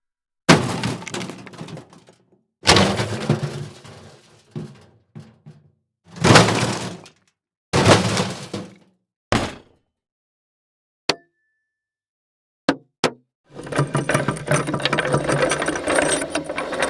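A run of separate impact sound effects: five crashes, each with a breaking, rattling tail that dies away within a second or two, then three short sharp knocks, then a longer rattling crash of about four seconds near the end.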